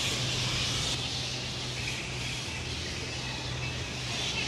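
A roosting colony of flying foxes screeching continuously in the treetops, over a steady low hum.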